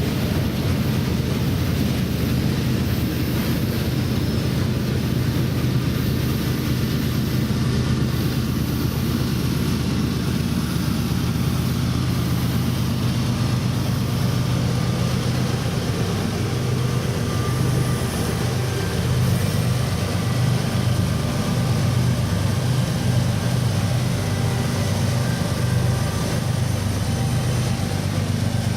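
Union Pacific diesel-electric freight locomotives running under load with a heavy freight train, a steady deep engine drone over continuous rolling noise. The drone takes on a slight pulsing beat in the second half.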